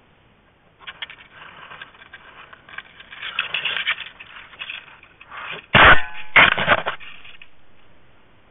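A black bear cub handling the trail camera: scraping and rubbing against the camera housing, then two loud knocks about half a second apart as the camera is shoved to a new angle.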